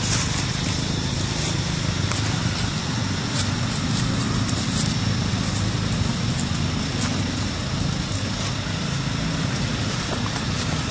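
A steady low rumble at an even level, with faint scattered clicks above it.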